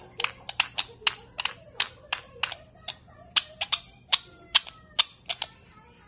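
Sun conures giving a run of short, sharp chirps, about twenty in quick, irregular succession, which stop shortly before the end.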